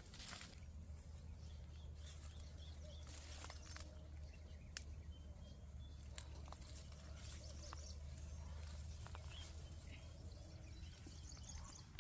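Faint outdoor ambience: a low steady hum under scattered light clicks and rustles, with a few short high chirps.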